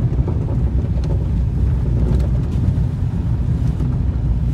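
Seat Ibiza being driven, heard from inside the cabin: a steady, low rumble of engine and tyres.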